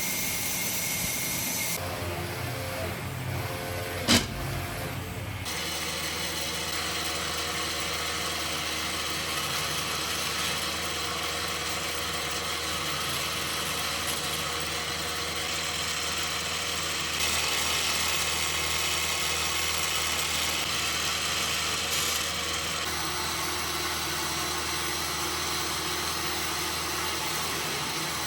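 Woodworking machine running steadily: a motor's hum with machining noise. A single sharp click comes about four seconds in, and the machine sound changes abruptly several times.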